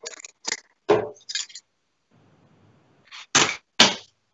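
Sharp clicks and knocks of steel-tip darts striking and being pulled out of Winmau Blade 5 bristle dartboards: a quick run of four in the first second and a half, then two more near the end.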